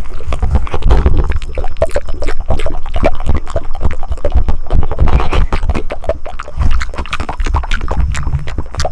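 Close-miked ASMR mouth sounds: a fast, irregular stream of wet clicks and smacks from the tongue and lips, over a low rumble.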